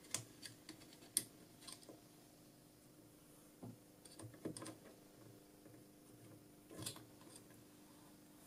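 Faint, scattered light clicks and scrapes of a screwdriver and fingers working a small synchro loose in a metal gear-train chassis, the sharpest click about a second in.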